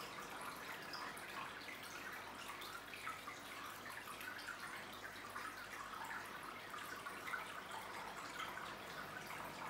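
Aquarium filter's returning water trickling and splashing onto the tank's surface: a steady, faint patter of small drips and splashes.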